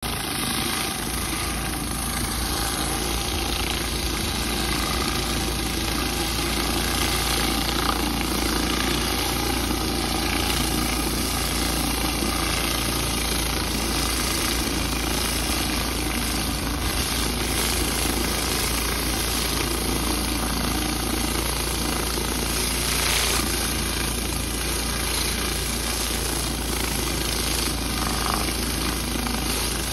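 Pressure-washer rotary surface cleaner spraying roof tiles: a steady hiss of high-pressure water jets over a constant machine drone as the cleaner is worked across the tiles, stripping moss.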